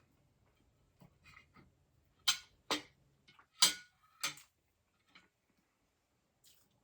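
Eating sounds at a meal: a handful of sharp clicks and taps, the loudest four close together in the middle, one of them ringing briefly.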